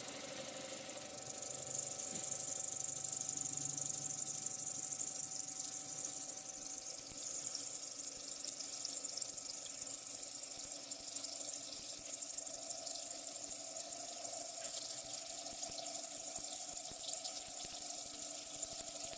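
CNC pipe-drilling machine running: a steady machine hum with a strong high hiss that swells about a second in and then holds.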